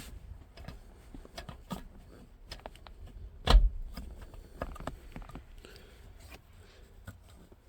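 Small clicks and scrapes of hands working grease into a car's short shifter assembly, with one sharp metallic knock about three and a half seconds in.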